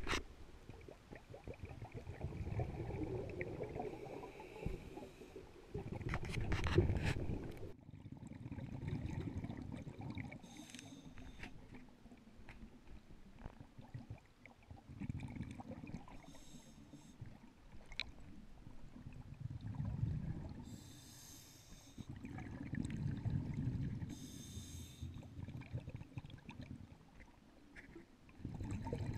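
Scuba diver breathing through a regulator, heard underwater: a low bubbling burst of exhaled air every few seconds, with a short high hiss between some of them.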